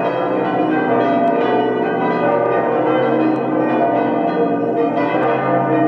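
Several large swinging church bells ringing together in a full peal at the close of a church service. Their strokes overlap continuously into a dense, steady clangour.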